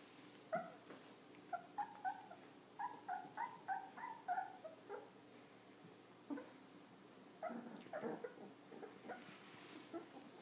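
Very young golden retriever puppies whimpering and squeaking in short high calls, about two a second in the first half, then a few more near the end.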